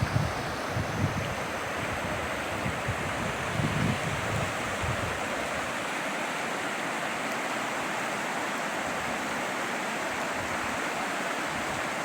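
Steady rush of flowing river water, with low wind buffeting on the microphone for roughly the first five seconds.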